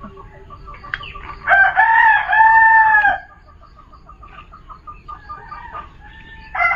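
A rooster crowing: one long call about a second and a half in, lasting about a second and a half and dropping in pitch at the end, with another crow starting just at the end.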